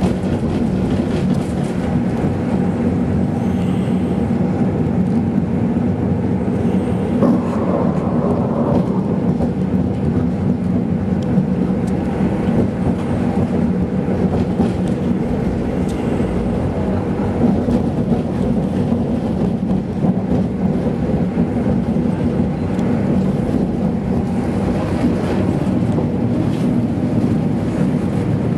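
Tram running along street track, heard from inside the car: a steady rumble of traction motors and steel wheels on the rails.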